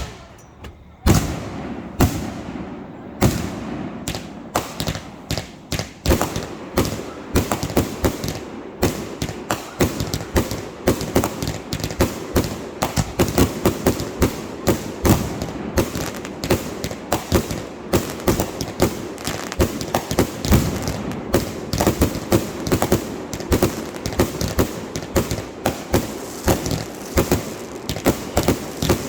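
Fireworks going off in quick succession: separate bangs and thuds that thicken into a dense run of many reports a second, crackling and popping.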